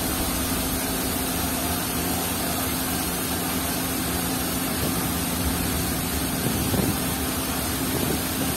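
Steady drone of running machinery with a constant hiss over it and a low hum that holds one pitch.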